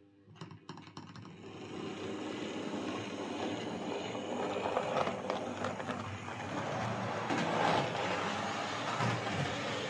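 Tri-ang 'Lord of the Isles' Dean Single OO gauge model locomotive moving off and running along the track: a few clicks as it starts, then a steady whirr of its motor and wheels on the rails that builds up over the first couple of seconds.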